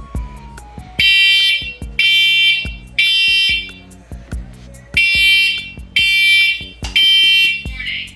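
Household smoke alarm sounding under test: three loud, high-pitched beeps about a second apart, a pause, then three more. This is the three-beep fire-alarm pattern. Background music with a steady beat plays underneath.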